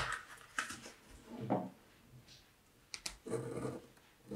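Quiet handling sounds from a paper trimmer and a vinyl tile sticker being cut to size: a few short rustles and taps, a sharp click just before three seconds in, then a softer scraping near the end.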